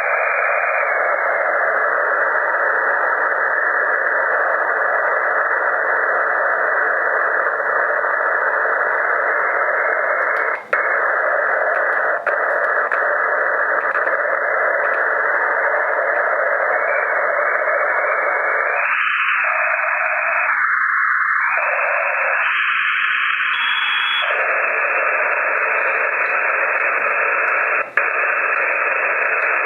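Shortwave receiver hiss: band noise on 40 meters in upper sideband from a FlexRadio 6600M, a steady, even rush of static. The hiss briefly drops out twice, and about two-thirds of the way through it changes in tone several times as its upper and lower edges shift.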